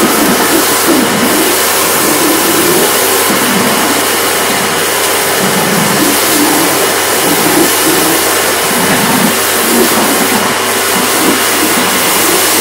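Kärcher electric pressure washer running with a rotary patio-cleaner attachment pressed on paving slabs, making a loud, steady rushing hiss of water jets.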